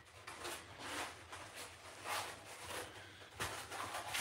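Handling noise of packing: scattered rustling and scraping as a white protective top is lifted off a 3D printer and set down, with a sharp knock about three and a half seconds in.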